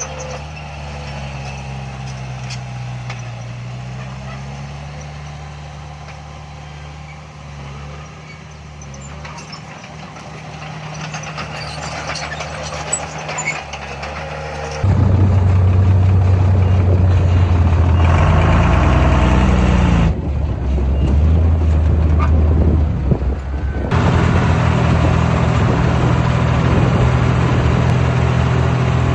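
Heavy diesel engines of earthmoving machines running. Partway through, the sound jumps abruptly louder and closer, and the engine speed rises and falls.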